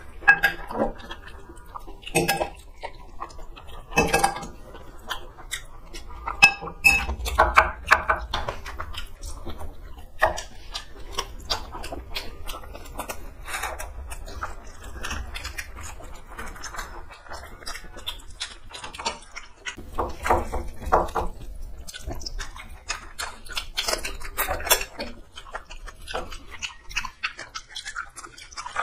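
People eating rice and chicken curry by hand: chewing and mouth sounds, with scattered clinks and scrapes of a spoon and fingers on steel plates.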